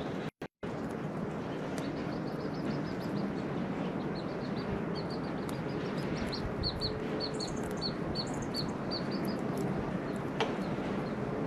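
Small birds chirping, quick high chirps several a second through the middle, over a steady outdoor background noise. The sound cuts out for a split second just after the start, and there is one sharp click near the end.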